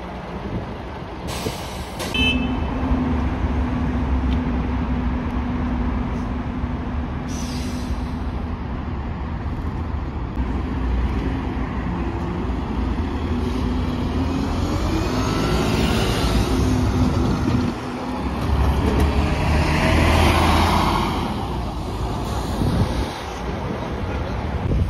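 City buses' engines running. A steady hum gives way to rising whines as the buses pull away. Two short hisses of air brakes come in the first several seconds.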